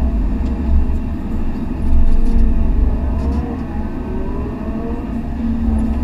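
Hydraulic excavator's diesel engine running under load, heard from inside the cab as a deep steady rumble. Over it, hydraulic whines rise and fall as the boom swings and the bucket dumps and returns, with a surge in loudness about two seconds in.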